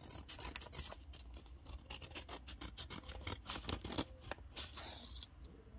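Small scissors cutting along the edge of a paper envelope to open it: a quick, irregular run of many short snips and paper rasps.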